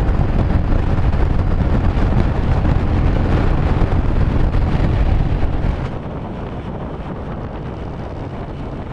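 Wind buffeting the microphone over road and engine rumble from a Royal Enfield Himalayan 411 motorcycle at road speed. About six seconds in it drops to a quieter, steadier rush of wind.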